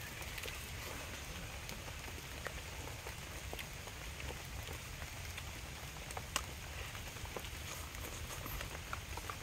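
Steady rain falling on foliage and water, with scattered sharp drip-like ticks and one louder click about six seconds in.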